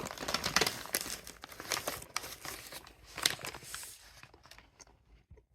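Crunchy melon bread crust crackling as it is broken and bitten into: a dense run of sharp crackles for about four seconds, then dying away.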